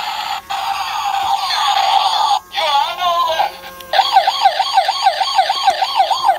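Toy police car's electronic siren: a steady high tone, then a brief warble, then after a short break a fast yelp rising and falling about four times a second, cutting off abruptly at the end.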